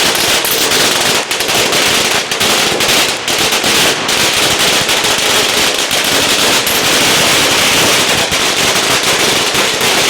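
A long string of firecrackers going off in a dense, unbroken crackle of rapid sharp bangs.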